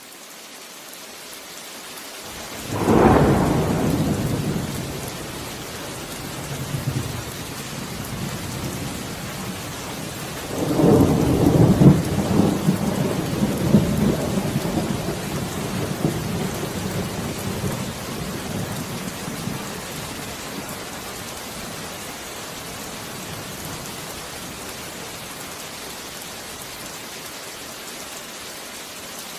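Steady heavy rain with two peals of thunder: a sharp crack about three seconds in that rumbles off, then a longer rolling peal starting about ten seconds in that fades away.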